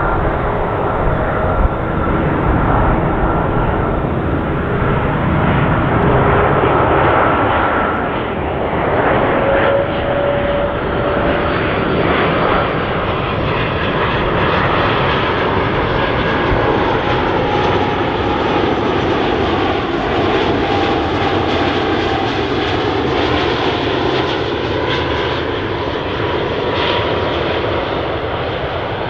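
Singapore Airlines Airbus A330-300 on final approach, its Rolls-Royce Trent 700 turbofans giving a steady jet roar. Faint whining tones in the roar drift slowly in pitch.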